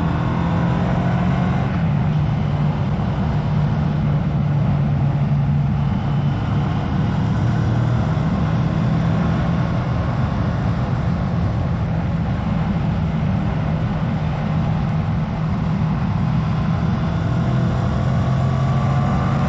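Moto Morini X-Cape 650's Kawasaki-based 650cc parallel-twin engine running at a steady road cruise of about 55 mph, heard from on the bike with road and wind noise.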